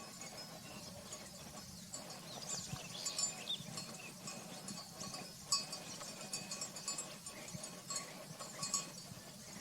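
Dawn chorus of several birds chirping and trilling in many short high calls, with a few thin steady tones underneath.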